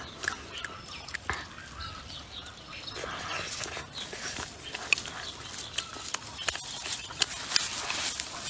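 Eating sounds: irregular sharp crunches and clicks from chewing and handling food, with a few short clucks from chickens.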